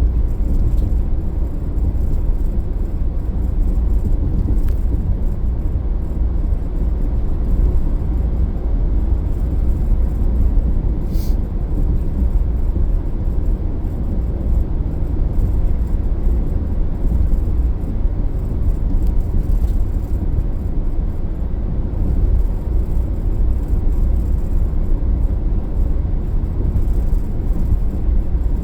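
Car driving at a steady pace: a continuous low rumble of tyres on the road and the engine.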